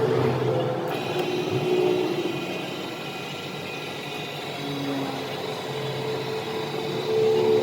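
A machine running steadily with a hum, joined about a second in by a higher whine.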